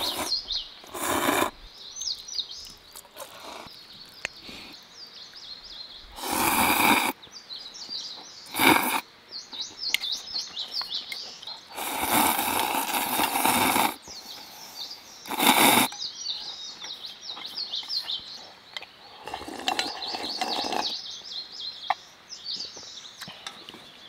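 Ramen noodles and broth slurped from a metal bowl in about seven noisy slurps, the longest and loudest lasting about two seconds some twelve seconds in. Small birds chirp throughout.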